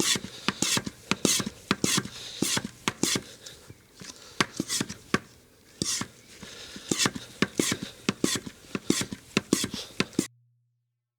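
Hand-operated vacuum oil extractor pump being worked in quick strokes, a rhythmic clicking and clacking of about three strokes a second that drops off briefly twice. It builds vacuum to draw engine oil up through a hose in the dipstick tube. The sound cuts off suddenly near the end.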